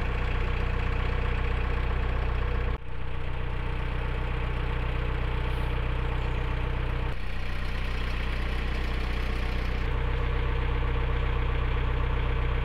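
Narrowboat's diesel engine running steadily at cruising pace, a low even chug, with a brief dip about three seconds in.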